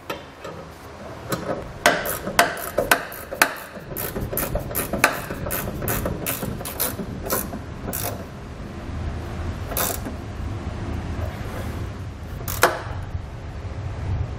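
Hand socket ratchet clicking in short strokes as hex nuts are run down and tightened on carriage bolts under a truck bed. The clicks come fast and uneven for the first several seconds, then thin out to a few single clicks.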